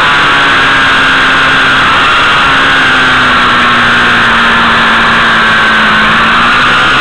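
Motorcycle engine running at speed under loud wind rush on an onboard camera's microphone; the engine note sags slowly lower over a few seconds.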